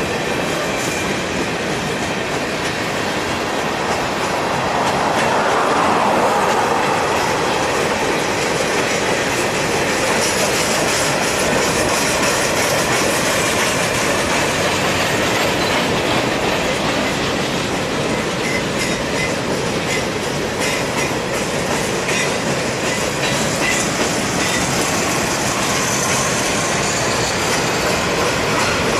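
Mixed freight train of gondolas, tank cars, flatcars and covered hoppers rolling past, a steady rumble and rattle of the cars with the wheels clicking over rail joints.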